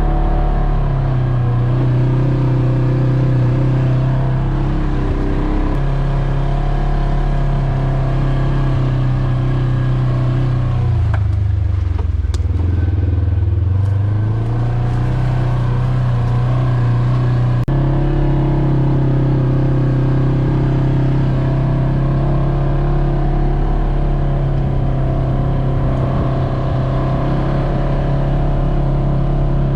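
Polaris RZR 900 Trail side-by-side's twin-cylinder engine running under way. Its pitch drops for a couple of seconds near the middle and then rises again, with a few abrupt jumps in pitch.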